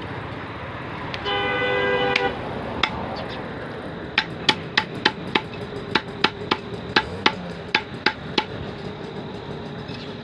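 Steel cleaver chopping poultry on a wooden chopping stump: a quick run of sharp knocks, about three a second, from about four seconds in to just past eight. A brief horn-like honk sounds about a second in.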